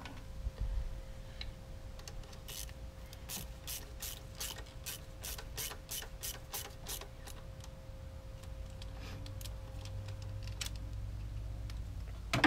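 Ratchet wrench clicking in an even run, about four clicks a second, while the nut is run down on the starter motor's main power-cable terminal. A few more scattered clicks follow, then one sharp knock near the end.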